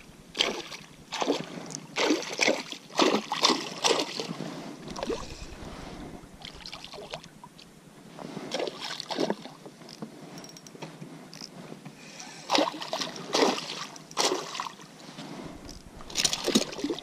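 A small hooked pike thrashing and splashing at the water's surface on a spinning line, in several separate bouts of splashing.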